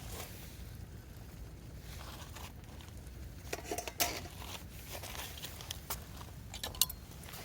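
Camp gear being handled: scattered clinks, rustles and a few sharp knocks, the loudest about four seconds in, over a steady low rumble.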